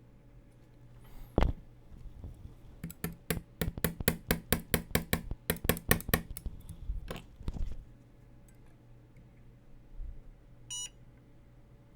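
Battery spot welder firing: one sharp snap, then a fast run of about twenty snaps at roughly five a second, one more a moment later, and a short electronic beep near the end. The welds are not taking even at the higher setting, which is too weak to hold the strip.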